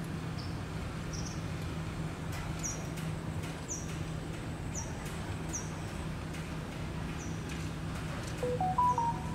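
A small bird giving short, high chirps that fall in pitch, repeated about once a second, over a steady low hum. A few short pitched tones sound near the end.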